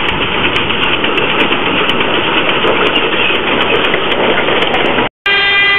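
Steam tank locomotive passing close with its coaches, heard as a loud, even rushing noise through an old camera's muffled, narrow-band microphone. It cuts off abruptly about five seconds in, and held musical notes begin.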